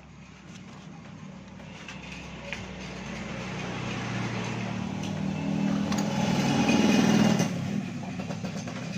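A motor vehicle engine running, growing steadily louder for several seconds and then dropping away about seven and a half seconds in.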